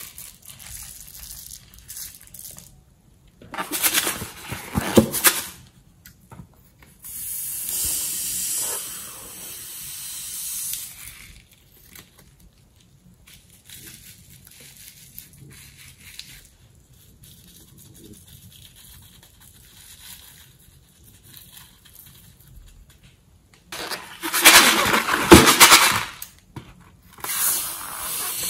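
Slime being worked by hand in a glass bowl: bursts of squishing and crackling as filled balloons are squeezed out into glittery, beaded slime, with quiet stretches between. The loudest burst comes about two-thirds of the way in, and near the end scissors snip into a rubber balloon.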